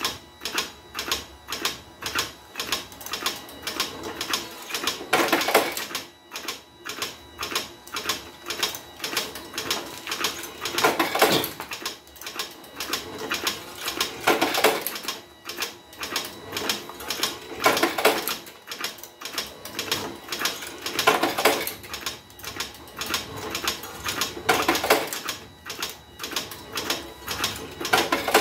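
Homemade automatic revolver-cylinder cigarette-making machine running while it makes filter cigarettes. Its mechanism clicks rapidly, about three times a second, and a longer, louder rasping noise comes every three to four seconds.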